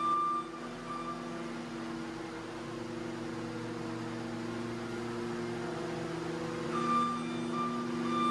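Caterpillar 299D2 compact track loader's diesel engine running steadily as the machine turns on its tracks. Its backup alarm beeps briefly at the start and again from about seven seconds in.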